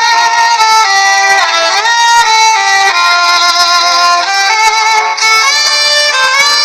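Background music led by a violin playing a slow melody, with notes that slide between pitches.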